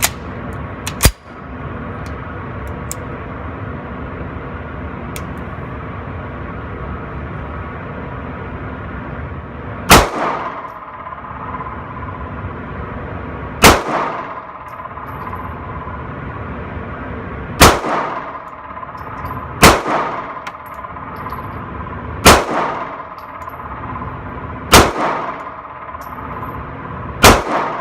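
Seven shots from a 1911-style pistol, fired deliberately a few seconds apart, each with a short echo. A single sharp clack comes about a second in.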